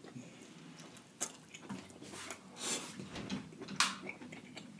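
Close-miked mouth sounds of a person eating deshelled seafood in butter sauce: soft wet chewing with scattered smacks and clicks, a few louder ones about a second in, near the middle and near the end.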